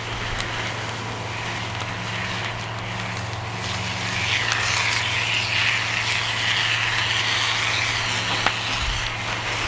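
A steady low engine drone, with a hissing rush of spray that swells about four seconds in while the coal fire is being doused. A few sharp clicks.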